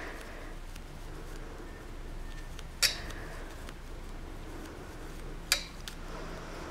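Two sharp clicks, about three seconds in and again two and a half seconds later, with a few fainter ticks over quiet room tone.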